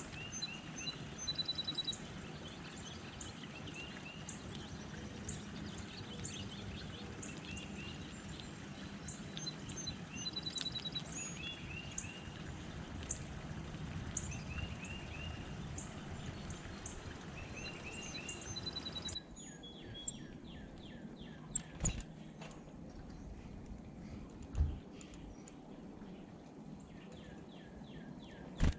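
Outdoor ambience with small wild birds chirping and calling repeatedly, short high notes and quick trills over a steady low background hum. About two-thirds of the way through the background changes abruptly, the birds keep calling, and a few dull thumps follow.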